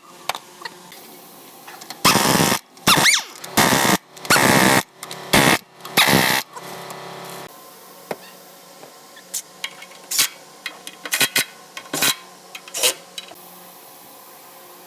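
Several short loud bursts of a power tool during axle and differential work, followed by scattered sharp metallic clinks and taps of tools and parts.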